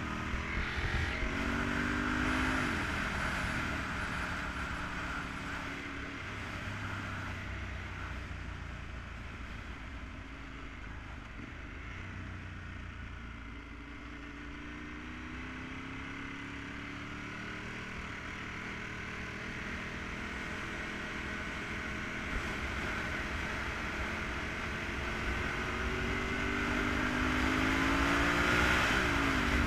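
Ducati 916's V-twin engine under way, its pitch climbing under acceleration and dropping sharply about two seconds in and again near the end, with steady wind noise over it. The engine eases off toward the middle and builds again through the second half.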